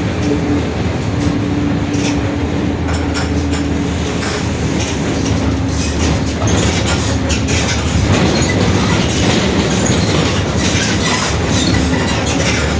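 Mercedes-Benz OF-1721 city bus's rear differential howling loudly while the bus drives, a steady whine over the running rumble. The whine fades about a third of the way through and comes back near the end, with frequent rattles throughout.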